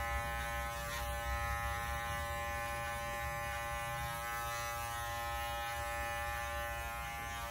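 Electric hair clipper running with a steady buzz, trimming neck hair over a fine-toothed comb.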